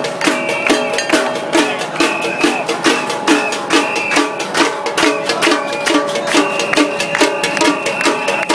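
Metal pans and plates banged by hand in a fast, even beat, with ringing metallic tones between the strikes: a cacerolada, pot-banging as protest.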